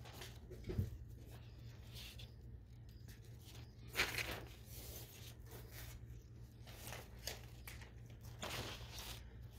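Faint crinkling rustles of a plastic cellophane gift bow under a hand holding it down, a few short ones, the clearest about four seconds in and again near the end, over a low steady hum.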